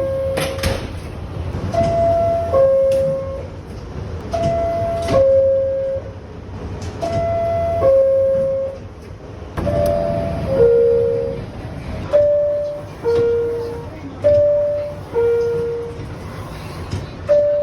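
Door chimes of R62A New York City Subway cars, the SMS-overhaul chime, sounding a repeating two-tone descending ding-dong every two to three seconds. About ten seconds in, a second, slightly lower-pitched chime overlaps and then carries on alone.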